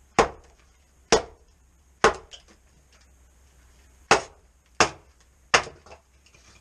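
Firewood being chopped: six sharp, woody strikes, roughly one a second, with a short pause after the third.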